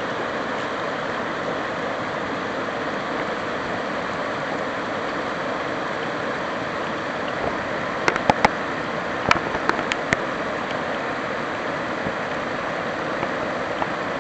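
Floodwater from a sudden heavy downpour rushing across a road in a steady flow. A handful of sharp clicks come about eight to ten seconds in.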